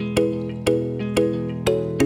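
Background instrumental music with a steady beat: sustained chords struck about twice a second.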